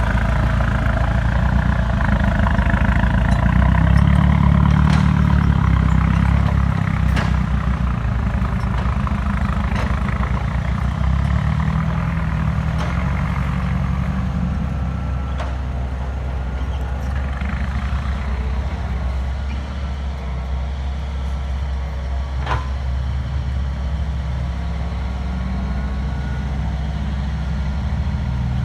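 Diesel engine of a Hitachi EX120 hydraulic excavator running steadily while it digs, swelling louder a few seconds in, with a couple of sharp knocks.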